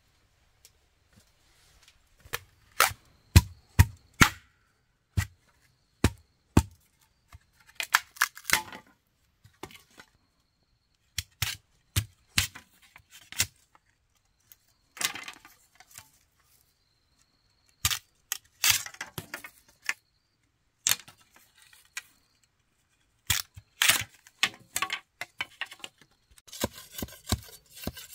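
A long run of sharp clicks and knocks at irregular intervals, some single and some in quick clusters, with short pauses between them, like hand work with tools.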